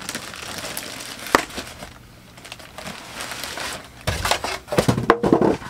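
Clear plastic packaging crinkling as it is handled and pulled free, with a sharp click about a second and a half in and louder, busier crinkling near the end.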